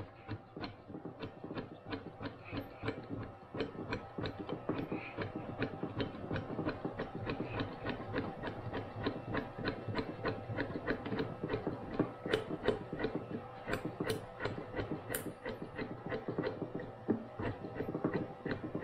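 Double-nut ball screw on an Optimum MH28V mill's X-axis being turned by hand through its coupling, running the table along its travel: a rapid, even run of ticks from the ball nut, with a faint steady hum underneath.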